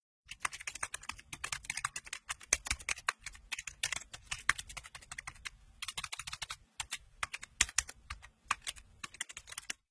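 Typing on a computer keyboard: a fast, irregular run of keystroke clicks with a few short pauses, stopping just before the end.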